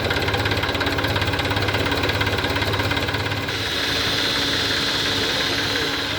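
Heavy diesel engine running steadily with a fast, even chugging pulse. About halfway through, a high steady whine joins it and fades out near the end.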